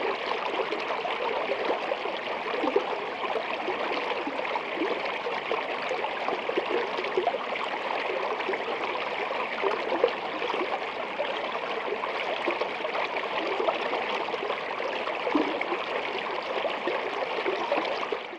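Steady rush of running water, like a stream, with small gurgles throughout.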